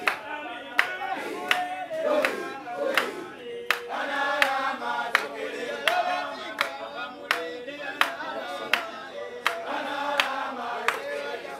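A group of voices singing together, with hand claps keeping a steady beat of about three claps every two seconds.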